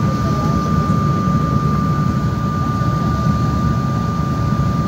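Cabin noise of a CRJ-700 regional jet taxiing, its rear-mounted General Electric CF34 turbofans running at low thrust: a steady low rumble with a thin, steady high whine over it.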